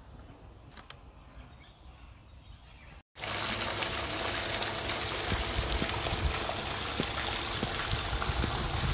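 Faint outdoor background for about three seconds. After a sudden cut, garden fountain jets splash steadily as the falling water hits below.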